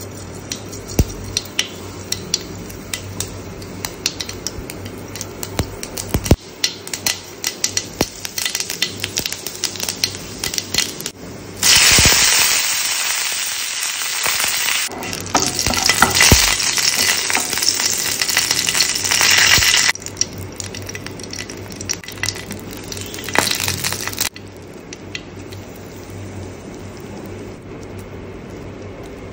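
Hot cooking oil in a nonstick pan crackling and spitting with many sharp pops. About twelve seconds in it breaks into a loud, steady sizzle for some eight seconds as seeds and curry leaves fry, then spits again and settles to a quieter sizzle near the end.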